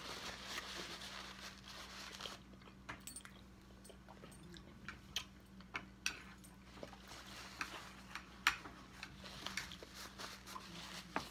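A person chewing food, with scattered short wet clicks and smacks from the mouth. A faint steady low hum runs underneath.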